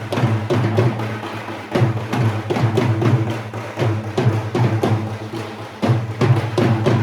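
Samba band drumming: deep bass drums and sharp wood-block-like clicks beating a fast, steady rhythm.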